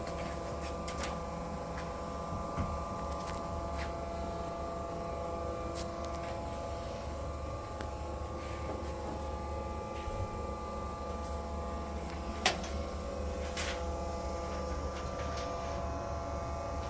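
Deckel Maho DMU 50 V five-axis CNC machining centre running with a steady hum made up of several tones over a low drone, with scattered light clicks and one sharp click about twelve seconds in.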